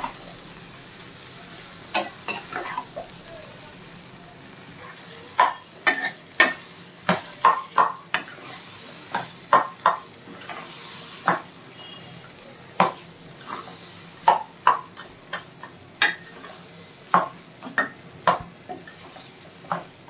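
A steel ladle knocking and scraping against a nonstick kadai as thick, mashed cooked taro leaves are stirred, in irregular clusters of sharp clicks that grow busier about five seconds in. A steady sizzle from the pan runs underneath.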